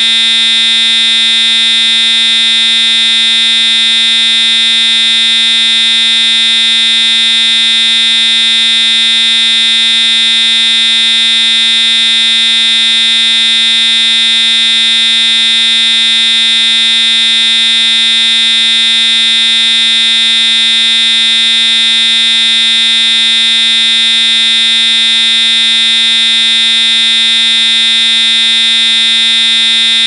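Edwards Integrity fire alarm horn strobe sounding a steady, unbroken buzzy horn tone, set to continuous rather than a pulsed pattern.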